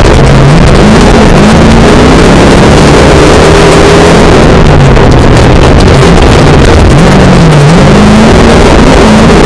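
Folk race car's engine heard loud from inside the cabin as it drives a dirt track, over a steady rush of road noise. The engine note drops and climbs back just after the start and again about seven and a half seconds in, as the driver lifts off and gets back on the throttle.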